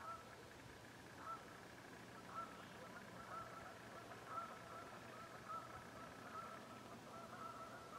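Faint, distant geese honking over and over, roughly one honk a second.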